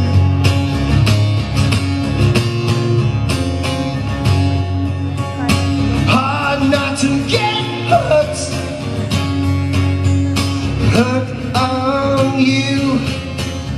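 Live solo performance of a rock song: a guitar strummed in a steady rhythm, with a man's voice singing over it in two phrases, about halfway through and again near the end.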